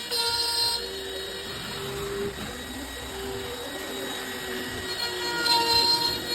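Background music: a simple tune of held notes that step from one pitch to the next.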